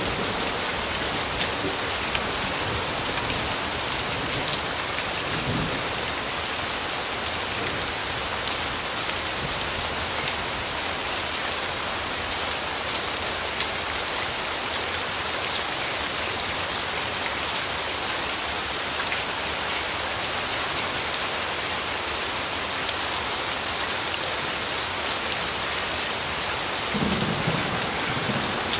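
Steady, dense rain falling on a surface, an even hiss throughout, with a brief low rumble about five seconds in and another near the end.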